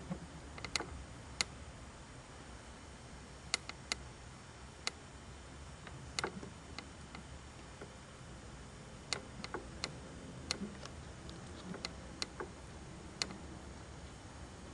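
Sharp cracks and taps from a table under the sitters' resting hands, about twenty of them at irregular intervals, some in quick clusters. In this table-tilting sitting they are the raps that the sitters attribute to the table itself.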